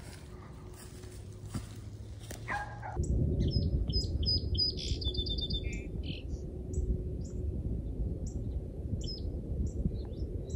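Songbirds chirping: a run of short, high chips and a brief rapid trill. Under them is a steady low rumble that starts about three seconds in.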